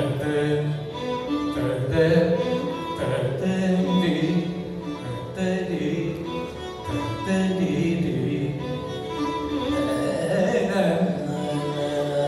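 Male Carnatic vocalist singing in raga Mohana with a violin closely following the vocal line.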